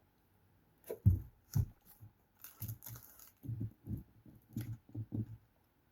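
Close-miked chewing and mouth sounds from someone eating fast food. A string of irregular wet smacks and bites begins about a second in.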